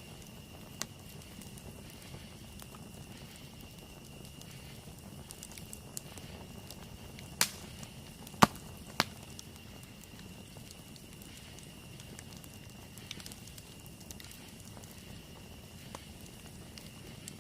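Campfire burning with a soft crackle, and sharp pops from the burning wood, three of them loud and close together past the middle.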